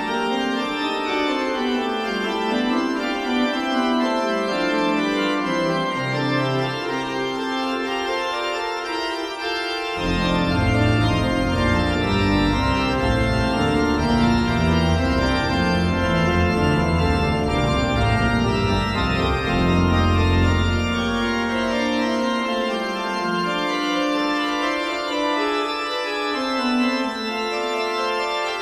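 Organ music playing slow, held chords; deep bass notes come in about ten seconds in and drop away about eleven seconds later.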